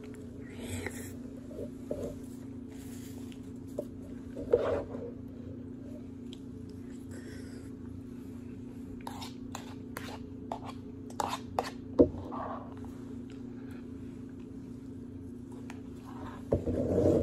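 A metal spoon clinking and scraping against a bowl while oatmeal is eaten from it, in scattered light clicks that come thickest in the middle, the sharpest about three-quarters of the way through. A steady low hum runs underneath.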